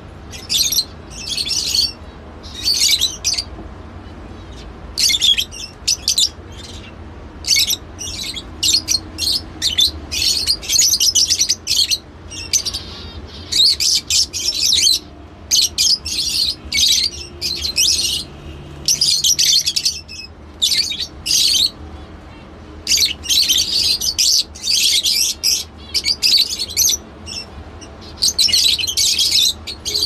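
A flock of caged lovebirds chattering: bursts of shrill, rapid chirps and squawks coming back about once or twice a second.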